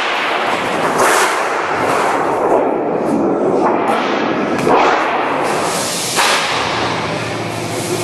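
Thin sheet steel being handled and bent on a manual steel folding machine: a run of loud swishing, rattling swells, about six of them, each starting suddenly and fading away.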